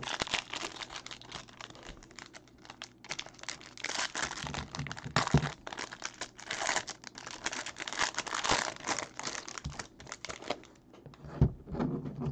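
Foil and clear plastic trading-card pack wrapping crinkling and tearing as the pack is opened and the cards are pulled out. Near the end the crackling thins out and a stack of cards is set down on the table with a light knock.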